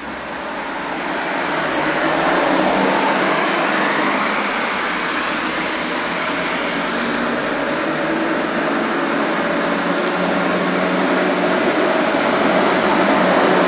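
Steady road-traffic noise from cars passing through an intersection, with a heavy truck approaching near the end.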